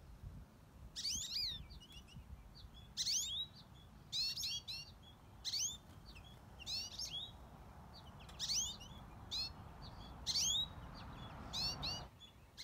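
American goldfinches calling from a tree: short clusters of quick rising chirps, repeated every second or two. The owner takes the calling for the adults trying to distract him from their fledglings.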